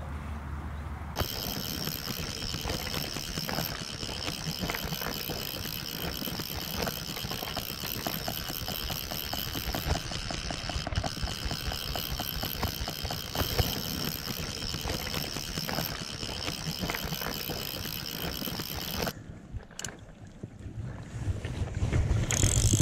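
Fly reel's ratchet clicking rapidly and unevenly as a hooked salmon takes line or is played, over a steady rush of noise. The clicking stops abruptly near the end.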